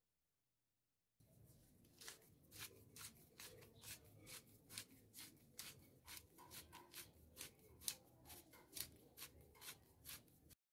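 Wooden pepper mill grinding black pepper: a quiet, crackly grind of sharp clicks about two to three times a second as the top is twisted. It starts about a second in and stops abruptly just before the end.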